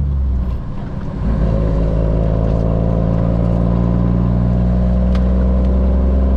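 Cummins ISM diesel of a 2000 Freightliner FLD 112 semi running steadily at highway speed, heard from inside the cab. About half a second in it drops in level for roughly a second, then picks back up and pulls steadily again.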